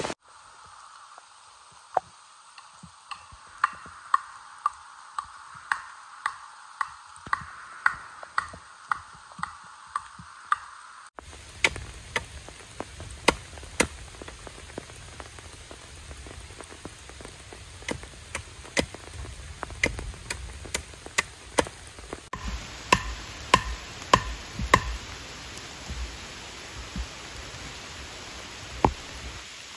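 Blade chopping a point onto a wooden stake: a series of sharp strikes, roughly one every half second, over steady rain.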